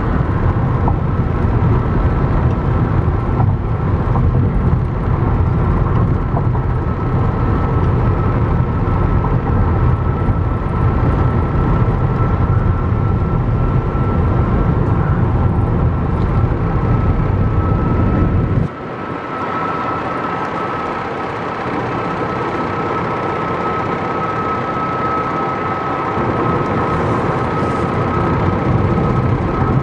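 Car cabin road noise at highway speed: a steady rumble of tyres and wind, with a thin steady whine over it. The deep rumble drops away suddenly about two-thirds of the way through, leaving a lighter hiss.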